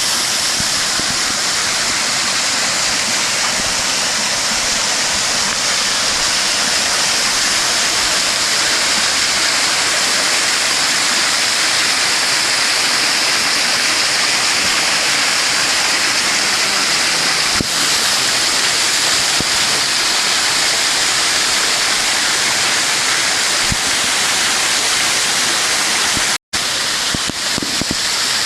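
Rushing water, a steady loud rush with no pauses, that cuts out for an instant near the end.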